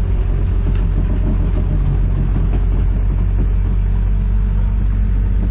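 Excavator engine running steadily with a low rumble.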